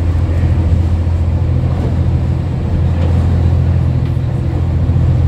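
A boat's engine droning steadily under way, a low even hum, with a constant rush of wind and water over it.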